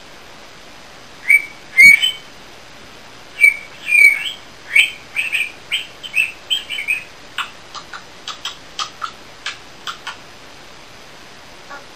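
African grey parrot giving a run of short whistled chirps, then a string of about ten sharp clicks in the second half.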